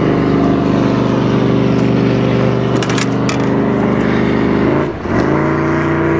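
Boat's outboard motor running steadily close by; about five seconds in its pitch and level drop briefly, then come back up. A few light clicks sound around the middle.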